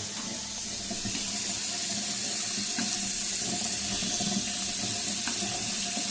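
Faucet running a steady stream of water into a newly installed lavatory sink, a test run to check the new drain for leaks. The flow gets a little louder about half a second in.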